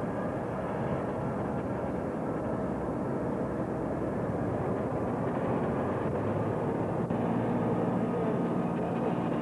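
Steady rumble of heavy machinery, with a low engine hum coming in about halfway through. There is a brief click and dropout about seven seconds in.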